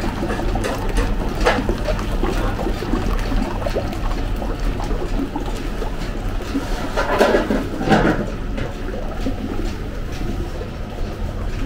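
Motorised mixer paddle churning liquid saffron sohan batter in a copper bowl, a steady hum with the sloshing of the batter, mixed with small kitchen clicks and two louder clanks of metal kitchenware about seven and eight seconds in.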